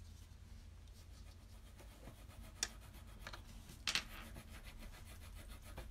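Faint scratching and rubbing of colored pencils on paper, with two short clicks, one about two and a half seconds in and one about four seconds in.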